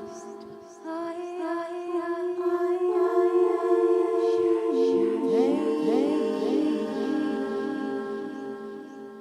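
Layered, multitracked voices singing overlapping sustained notes a cappella, with a run of swooping vocal glides about halfway through.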